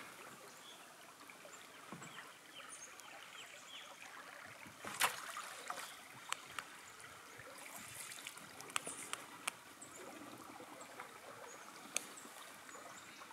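Faint flow of a slow river, water trickling and lapping, with scattered small clicks and ticks, a sharper one about five seconds in.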